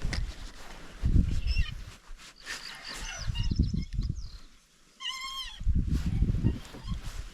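A single animal call about five seconds in, rising then falling in pitch, with faint high bird chirps earlier and several stretches of low rumbling noise.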